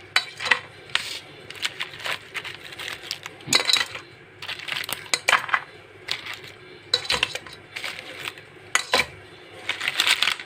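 Raw whole crabs being laid into a cooking pot, their hard shells clicking and clacking against the pot and each other in an irregular run of knocks, several of them louder.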